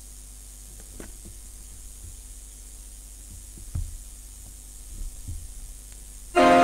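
Quiet church room tone with a steady low hum and a few soft knocks, then, just before the end, recorded music for the closing hymn starts playing suddenly and loudly.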